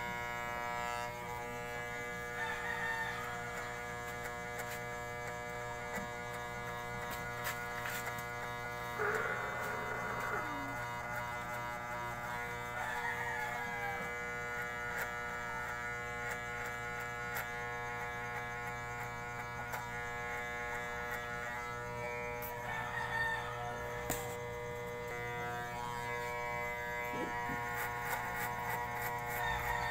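Corded electric hair clipper running steadily, buzzing as it cuts the hair short up the side and back of the head. Over it a rooster crows in the background, loudest about a third of the way in, with other bird calls now and then.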